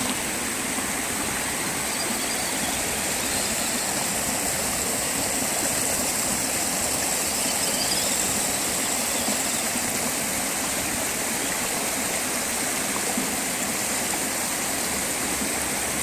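Steady rushing of a shallow river running over rock below a dam spillway, an even, unbroken water noise.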